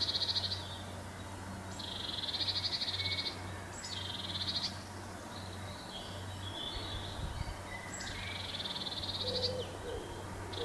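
Eurasian nuthatch trilling: a rapid, high, pulsed trill of about a second, given four times with short gaps and a few fainter chirps between, over a steady low hum.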